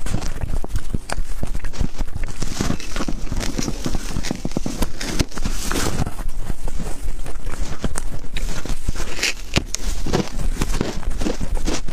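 Close-miked crunching and chewing of frozen shaved ice, a dense run of crackles and sharp cracks, with a fresh bite into the ice block near the end.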